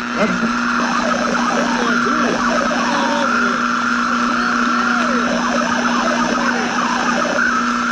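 Old radio static: a steady low hum and a higher whine over hiss, with many short warbling whistles sliding up and down, like a receiver tuned between stations.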